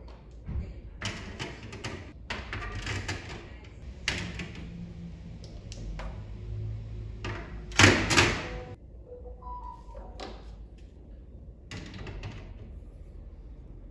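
Objects being handled: an irregular run of short knocks, scrapes and rustles, the loudest a sharp double burst about eight seconds in.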